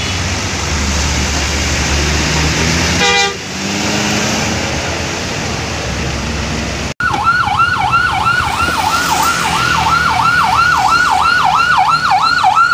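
Heavy engine rumble from the buses. After a sudden cut about seven seconds in, an electronic siren warbles quickly up and down, about three times a second.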